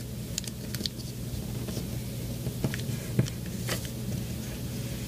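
A sheet of origami paper being folded and pressed into creases by hand, with soft crinkles and a few scattered light ticks and scrapes over a steady low hum.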